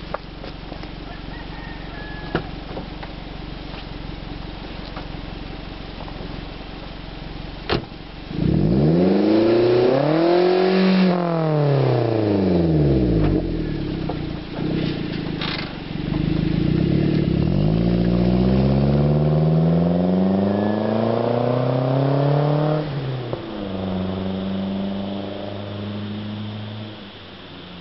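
Car engine breathing through a 5Zigen aftermarket exhaust: idling steadily, then revved up and back down quickly about eight seconds in, then held through a longer, slower climb in revs that drops back sharply to idle near the end.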